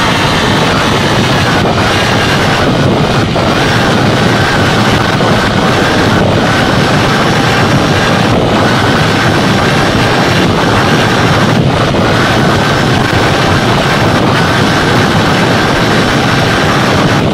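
Kyosho Mini Inferno 1:16 electric RC buggy running at about 50 km/h on asphalt, heard from its onboard camera: loud, steady wind and road rumble with a faint high whine that rises and falls slightly.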